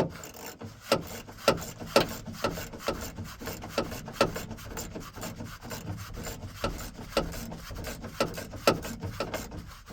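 Hand work on a pickup truck's door latch: irregular sharp clicks and knocks of metal parts and tools, about one or two a second, with rubbing and scraping between them.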